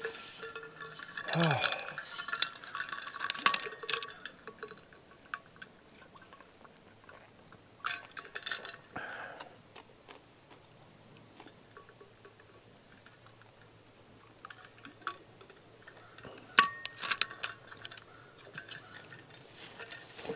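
Light clinks, clicks and rustling in three spells, near the start, about eight seconds in and near the end: a backpack's built-in folding stool being handled and sat on.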